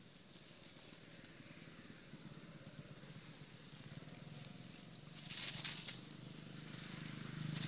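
Dry leaves crackling and rustling as macaques tussle and scramble on leaf litter, with a louder burst of crackling about five seconds in. A low steady hum runs underneath and slowly grows louder.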